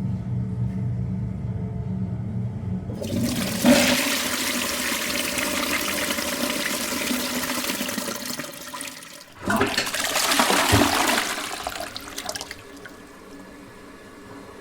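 Toilet flushing. A low rumble gives way about three seconds in to a loud rush of water, which breaks off briefly before a second rush, and then settles to a quieter hiss of water.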